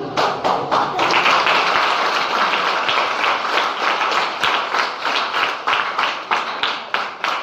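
Audience applauding: many hands clapping at once, starting suddenly and growing louder about a second in.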